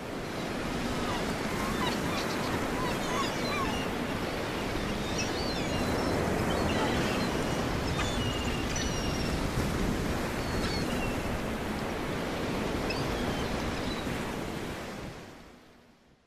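Ocean ambience: a steady wash of sea waves and wind, with seagulls crying now and then, fading out near the end.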